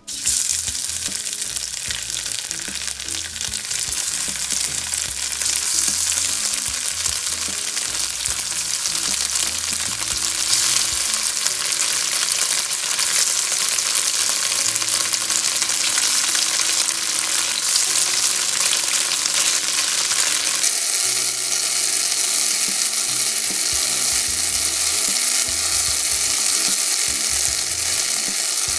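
Slices of extra-firm tofu frying in hot vegetable oil in a stainless steel pan: a loud, steady sizzle that starts abruptly and continues as more pieces are added.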